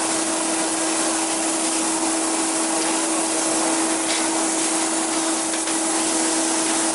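A steady rushing hiss with a constant hum under it, machine-like and unchanging.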